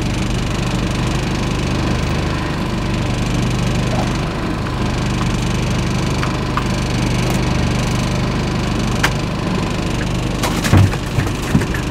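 Evinrude 40 outboard motor idling steadily, with a few sharp knocks near the end.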